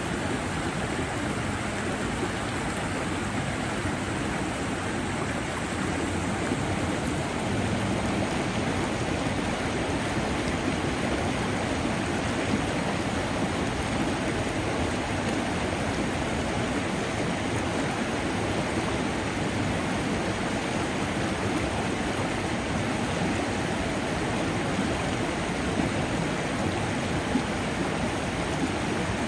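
Steady rush of flowing water, a stream running over rocks.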